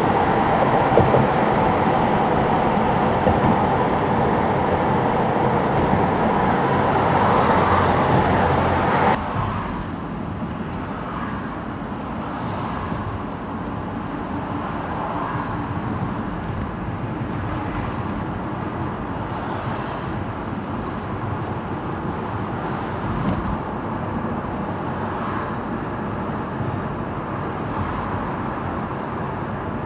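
Steady rumble of vehicle engines and traffic, loud for about the first nine seconds, then dropping suddenly to a quieter rumble with a few faint ticks.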